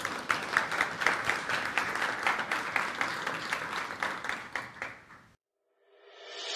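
Audience applauding, many hands clapping, stopping abruptly about five seconds in. Music fades in near the end.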